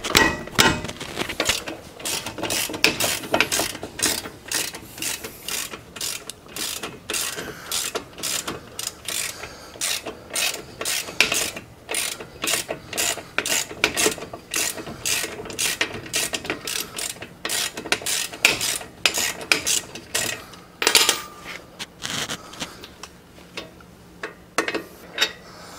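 Socket ratchet clicking in quick runs of strokes, pausing between runs, as the 21 mm caliper bracket bolts are worked loose.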